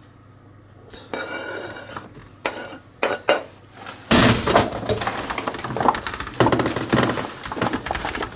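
Chunks of raw squash, potato and beetroot being tossed and mixed by hand on a metal baking tray: a dense clatter of pieces knocking against the tray that starts suddenly about four seconds in, after a few single knocks.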